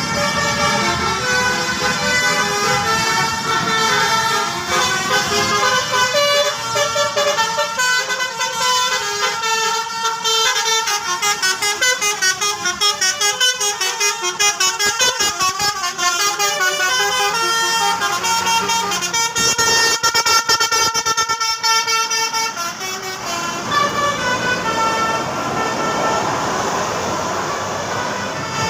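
Indonesian 'telolet Basuri' multi-tone bus horn playing a run of quick, changing horn notes, several tones sounding together like a little tune.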